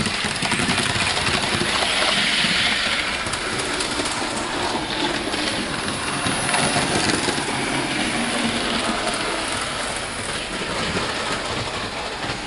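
Hornby model trains running on the track: a steady clattering rush thick with small clicks from the wheels, growing a little quieter toward the end.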